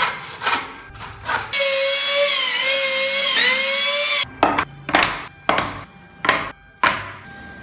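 An electric hand planer runs along a wooden board for about two and a half seconds, its motor whine dipping slightly in pitch as the blades bite. Before it come a few short knocks, and after it five sharp wooden knocks as planed boards are set down on a stack.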